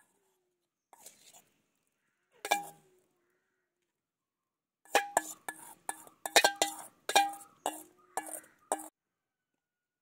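Metal utensil knocking and clinking against a metal bowl, the bowl ringing after each strike: a few single knocks in the first half, then a quick run of about ten taps between about five and nine seconds in.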